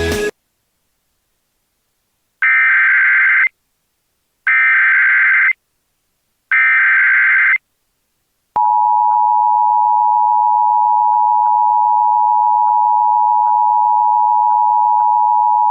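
Emergency Alert System broadcast: three one-second bursts of the SAME header data tones, harsh screeching digital chirps about two seconds apart. After them the EAS two-tone attention signal starts and holds steady, a loud buzzing pair of tones at 853 and 960 Hz.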